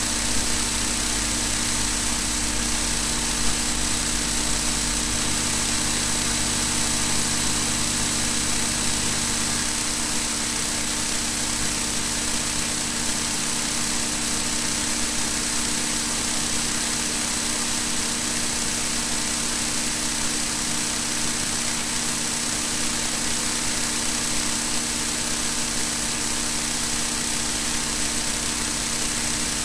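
Steady hiss with a faint constant electrical hum and no other sound: the noise floor of a silent amateur film transfer.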